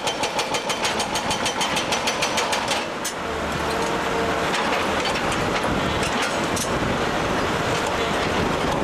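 Feeleng FINE 20 TOP hydraulic breaker on an excavator hammering rock in rapid, even blows, about eight a second. The blows stop about three seconds in, leaving the excavator's engine running steadily with a few single knocks of the chisel on stone.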